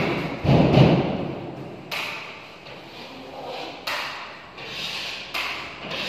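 A putty knife knocking and scraping against gypsum board while joint compound is spread on a drywall partition. There is a heavy thud about half a second in, then sharp knocks every couple of seconds, echoing in a bare room.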